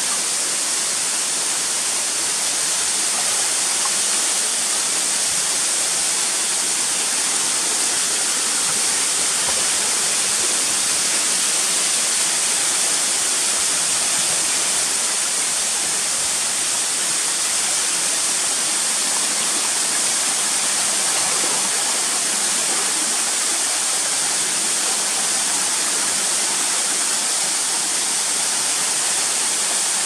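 A waterfall pouring down a mossy rock face and splashing onto rocky ledges: a steady, hissing rush of falling water.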